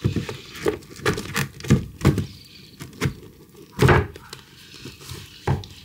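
Books being pulled out of and pushed back onto a bookshelf: a run of knocks and thuds, the loudest about four seconds in.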